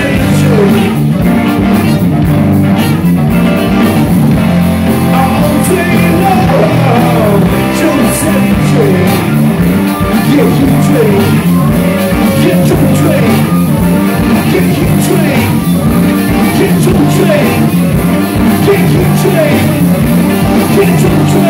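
Live rock band with trumpet, saxophone, electric guitars, bass guitar and drum kit playing loud and steady.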